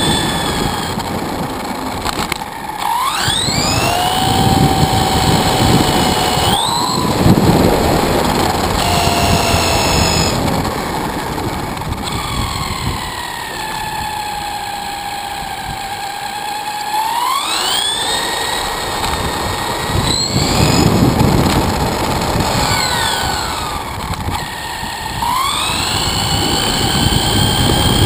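Whine of an Axial Exo RC buggy's Tekin 4600 kV four-pole brushless motor, heard from on the car. It rises in pitch as the car speeds up and falls as it slows, several times, over the rushing noise of its tyres on pavement and gravel.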